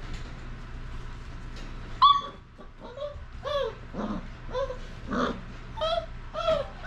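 33-day-old basset hound puppies crying: a string of about eight short, high cries, the loudest about two seconds in.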